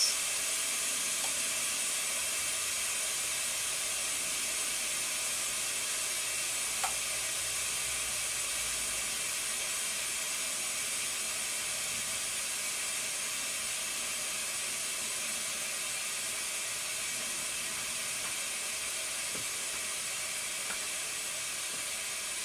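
Steady, even background hiss, with a faint click about seven seconds in.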